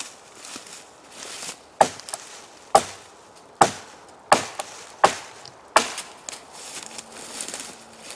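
A heavy blade chopping into a dead log that lay on the ground: six sharp wooden chops, one about every three-quarters of a second, starting a couple of seconds in. Before the chops there is soft rustling.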